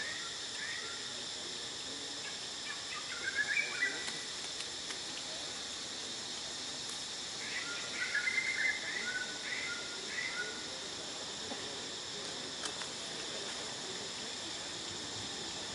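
Steady high-pitched insect drone in several even layers, with two bouts of short chirping calls, about three seconds in and again around eight to ten seconds in.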